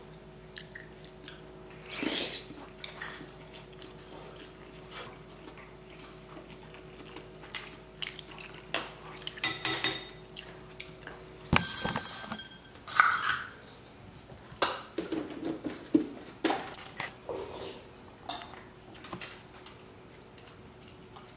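Wooden spoon and chopsticks tapping and clinking against a ceramic soup bowl, with a cluster of light ringing clinks about nine seconds in. After a sharp clatter about halfway through, a small dog eats from its food bowl: irregular crunching and clicks.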